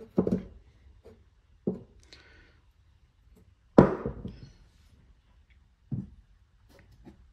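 Billet aluminium engine cylinders being picked up and set down on a wooden workbench: a few separate hard knocks with a short ring, the loudest about halfway through.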